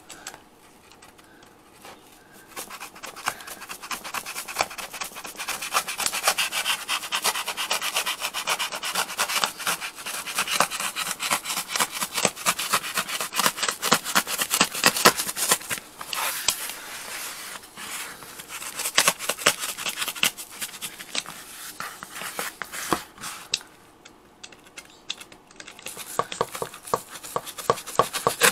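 Utility-knife blade sawing through a stiff felt-covered engine-bay cover panel: rapid, scratchy back-and-forth strokes that start a couple of seconds in and go on for about twenty seconds, then thin out to quieter, sparser scraping.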